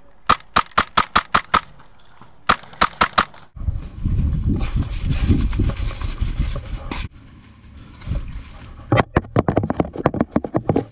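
HPA-powered airsoft rifle, an EMG Daniel Defense MK18 MTW, firing rapid volleys of shots, about six a second: a run of about seven, then four more, then a longer string near the end. In between there are about three seconds of rumbling noise.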